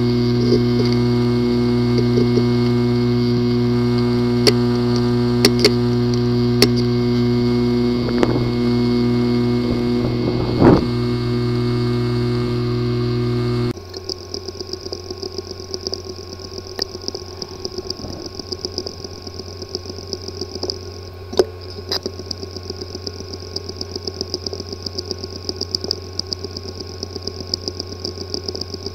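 Sound samples of hard drives with a physically damaged disk assembly: first a steady buzzing hum with occasional single clicks, then, a little under halfway through, it cuts to a quieter drive ticking over and over, several clicks a second, over a steady high whine. Both are the clicking and buzz typical of damaged heads or platters, a drive that no computer can access.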